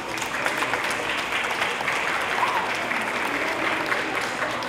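A crowd applauding: many hands clapping together, breaking out at the start and going on steadily.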